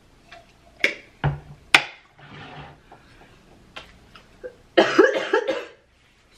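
A woman coughing: a few sharp single coughs about a second in, then a louder run of coughs near the end.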